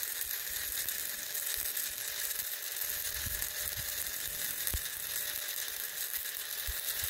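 Stick welding arc from a 1/8-inch 7018 electrode running a bead on steel plate: a steady hiss and crackle.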